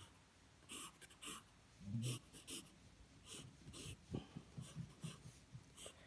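Graphite pencil scratching on sketchbook paper: a run of short, quick, irregular strokes as small twigs are sketched onto a branch.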